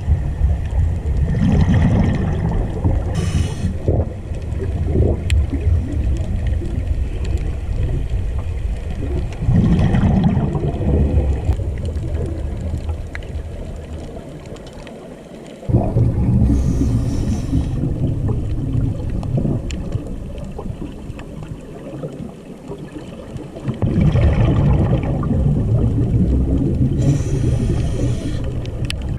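Scuba diver breathing underwater through a regulator: gurgling bursts of exhaled bubbles in slow repeating cycles, with short hissing inhalations between them.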